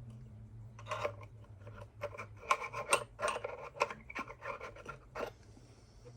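Handling noise of hands working small parts: a quick run of scraping, rubbing and clicking for a few seconds, over a steady low hum.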